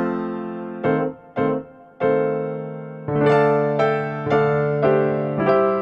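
Background music: a piano-like keyboard playing a tune of struck notes, each starting sharply and fading as it rings.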